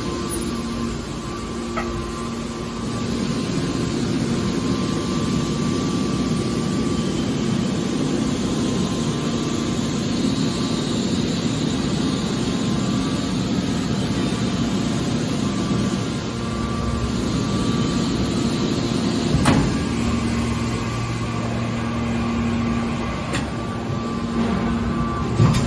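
Hydraulic aluminium can baler running, a steady machine hum over a noisy rush, with a sharp clank about three-quarters of the way through and another near the end.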